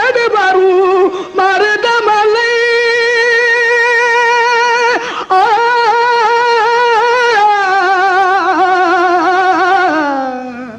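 Music: a single melody line of long held notes that waver in pitch, fading out near the end.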